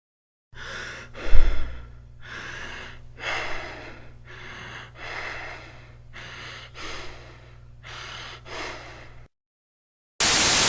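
Recorded human breath sounds: about five breaths, each a short airy inhalation followed by an exhalation, over a steady low hum, with a loud low thump about a second in. A loud burst of static-like noise starts just before the end.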